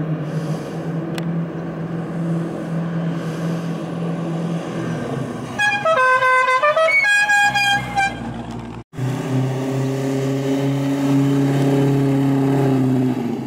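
TVR 400SE's Rover V8 running steadily at low speed, with two short horn toots about six seconds in, the second higher-pitched than the first. After a sudden cut, the V8 runs steadily again.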